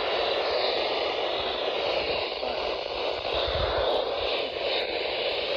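Weather radio receiver hissing with steady static while tuned to a weak NOAA weather radio signal.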